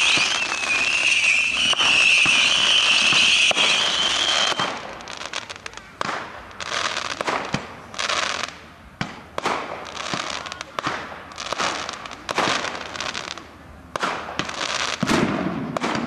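Fireworks display: a loud, steady high hiss for the first four or five seconds, then a rapid, irregular run of sharp bangs and crackles from bursting shells.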